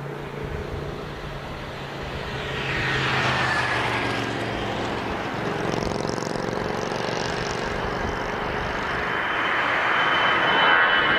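Jet airliner engines. The rushing noise swells a couple of seconds in, with a whine that falls in pitch, then a steady high whine grows louder toward the end.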